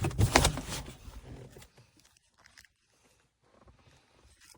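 Rustling and crinkling of a reflective-fabric windshield sun shade being handled, loudest in the first second and dying away, followed by a few faint clicks.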